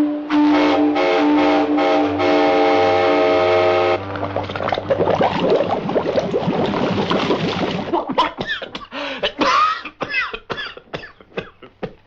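Train-whistle sound effect, a chord of several steady tones sounded in short blasts. About four seconds in it gives way to a dense hissing, rushing noise, then to a run of short, separate sounds with sliding pitch.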